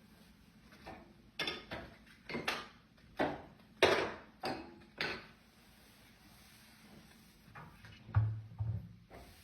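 Cleaning of a wood-burning stove insert's glass door with a damp cloth: a run of about seven short rubbing and handling strokes over a few seconds, followed by two low thuds near the end.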